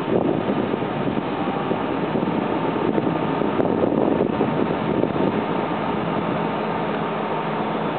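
SNCF BB 22200-class electric locomotive standing at the platform, its ventilation blowers running with a steady whir and a faint high steady tone.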